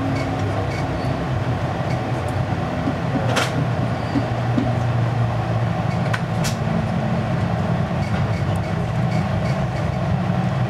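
Steady rumble and low hum of an Amtrak Pacific Surfliner passenger car running along the track, heard from inside the car. Two sharp clicks stand out, about a third of the way in and again a little past halfway.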